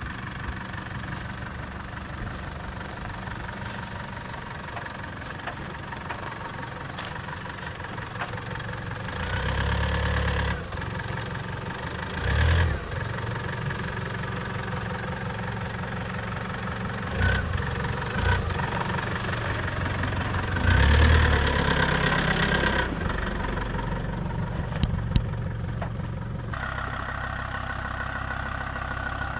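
A 4x4 off-road vehicle's engine running at low revs, rising in short bursts of throttle several times, the longest about two-thirds of the way in.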